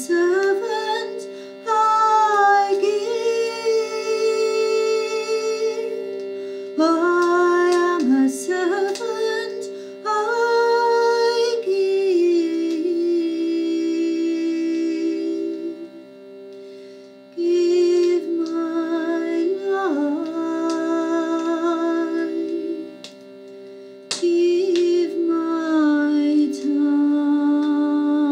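A woman humming a slow, wordless melody in phrases a few seconds long with short breaths between them, over steady held accompanying tones.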